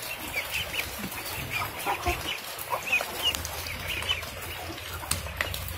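A flock of ducklings peeping in many short, high calls, with a hen clucking among them.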